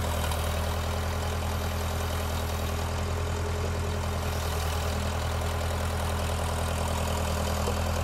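Case 580E backhoe's diesel engine idling steadily while the boom is swung left and right on its hydraulics.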